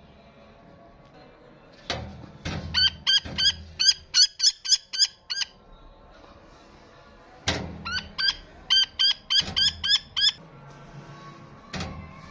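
A bird of prey calling in two quick runs of short, high chirps, about four or five a second and a couple of seconds each, with a few dull thumps in between.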